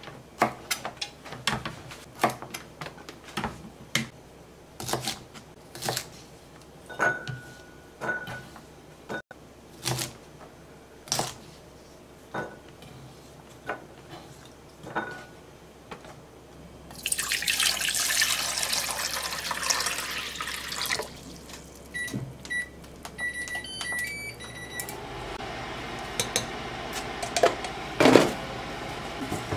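Kitchen knife cutting green beans on a plastic cutting board, irregular strikes about once a second. Then a tap runs for about four seconds, a row of short beeps sounds from the induction hob's controls, and a steady hum follows as the hob heats a saucepan of water, with one knock near the end.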